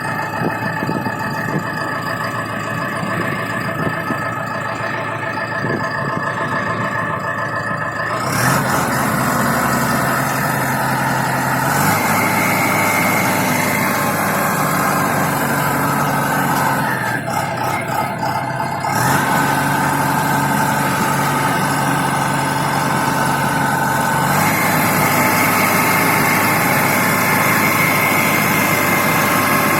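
Engine of a self-loading concrete mixer truck running, its pitch and loudness shifting in steps several times as the engine speed changes, with a hiss joining in about eight seconds in.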